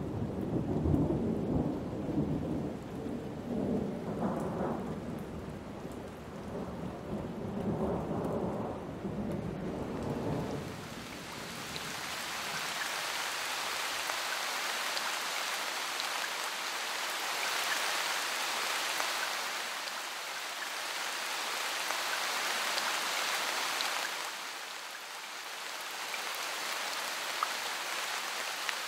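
Thunderstorm: low rolling thunder rumbles, swelling and fading several times over the first ten seconds or so, giving way to steady rain hiss that carries on to the end.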